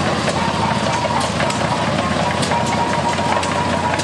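Small vintage crawler tractor's engine running at low speed as it creeps along, with scattered clanks from its steel tracks.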